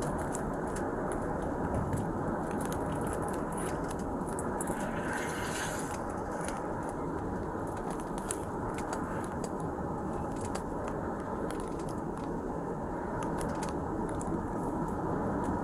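Scraping and crackling of clothing rubbing against a police body-worn camera's microphone: many short scratches and clicks, with a longer scrape about five seconds in, over a steady low rumble.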